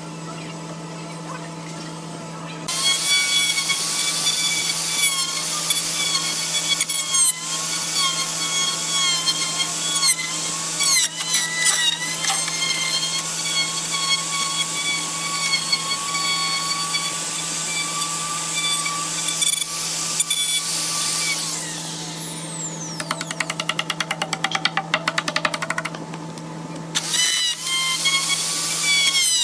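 Handheld electric plunge router cutting into a thick hardwood board: the motor's high whine turns loud about three seconds in as the bit bites, wavering in pitch as it is pushed through the wood. Near the end it eases off into a rapid fluttering tick for a few seconds, then cuts again.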